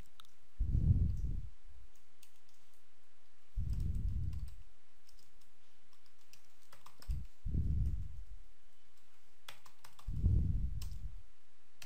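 Computer keyboard typing: scattered light keystroke clicks as a line of code is typed. Four low, muffled puffs about three seconds apart stand out above the keys.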